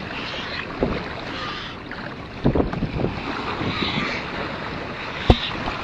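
Wind buffeting the microphone over the wash of surf, with a few short bumps.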